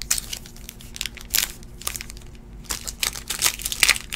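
Foil trading-card pack wrapper crinkling and tearing in the hands as it is opened: an irregular run of sharp crackles, busiest in the second half.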